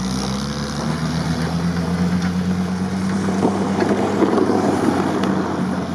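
UAZ-469 off-roader's engine pulling hard under throttle as it accelerates away and climbs a snowy hill. The note rises a little at the start, then holds steady, with wind noise on the microphone.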